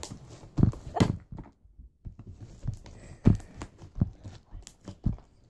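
Homemade slime being squished and handled, giving a few soft, irregular squelching pops and thuds.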